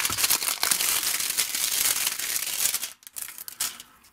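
Thin plastic packaging crinkling and crackling as hands work it on a plastic screwdriver-set case: dense crinkling for about three seconds, then a few scattered crackles.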